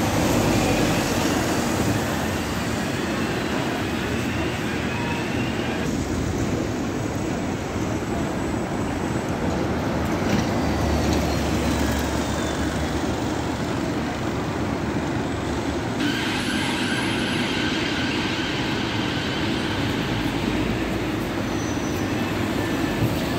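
Hybrid double-decker buses running and pulling away close by, diesel engines rumbling under a steady traffic background, with faint rising and falling whines from the drive. The sound changes abruptly twice.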